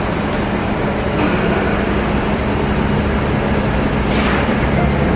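Loud, steady drone of running industrial machinery with a constant low hum, with a brief rise in higher-pitched noise about four seconds in.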